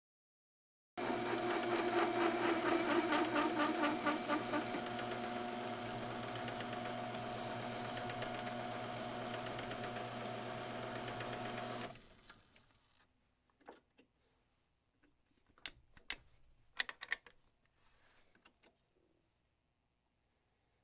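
An old flat-belt-driven metal lathe runs steadily for about eleven seconds, with a rhythmic pulsing in its first few seconds, and then stops suddenly. After it stops there are scattered metallic clicks and knocks as the part is handled in the chuck.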